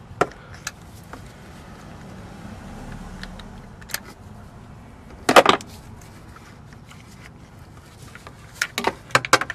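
Metal hand tools clinking against each other and the engine: a short clatter about halfway through and a quick run of sharp clicks near the end.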